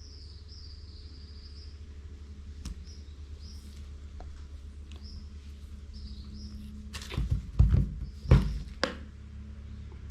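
Small screw on an adjustable scope ring being tightened with a hand tool: a few sharp metal clicks and knocks about seven to nine seconds in, over a steady low hum. Faint short high chirps come and go throughout.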